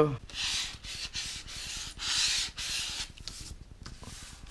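Hands rubbing and smoothing cardstock flat against a cutting mat: a few papery rubbing strokes, the strongest about two seconds in.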